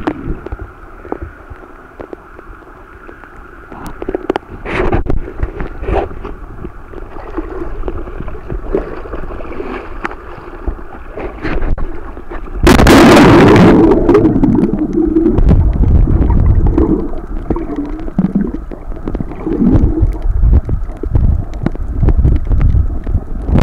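Sea water splashing and sloshing against a camera held at the surface by a swimmer, with scattered small splashes. About halfway through comes a sudden loud splash, then heavier low sloshing and gurgling of water around the camera.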